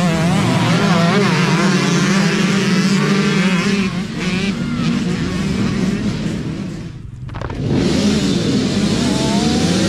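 A pack of youth dirt bikes revving hard off the start line, many engines at once with overlapping pitches climbing, then fading as they pull away. After a short drop about seven seconds in, another row of dirt bikes revs at the start line.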